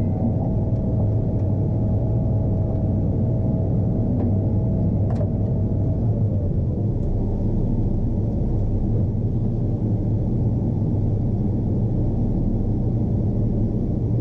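John Deere T670i combine harvester running steadily on the road, a constant low drone. A thin whine rides over it and fades out, dropping slightly, about six seconds in.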